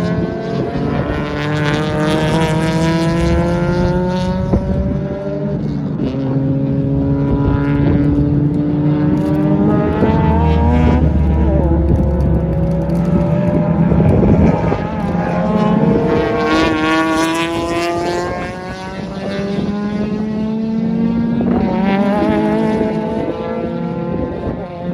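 Honda VTEC four-cylinder engine accelerating hard on a racetrack, its pitch climbing steadily and then dropping back at each upshift, about four times, over a steady lower engine drone.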